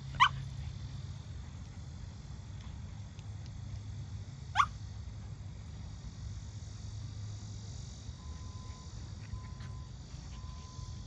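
A small dog's short, high yips: one right at the start and one about four and a half seconds in, over a steady low background rumble.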